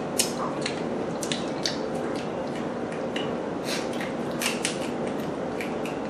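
Close-miked eating sounds: irregular small clicks and crackles of lobster shell being chewed, handled and snipped with kitchen scissors, over a steady low hum.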